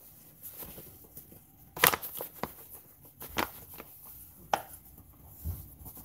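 Paper bag of flour crinkling and rustling as it is tipped over a stainless steel bowl, the flour pouring into the bowl. Scattered sharp taps and crackles, the loudest about two seconds in.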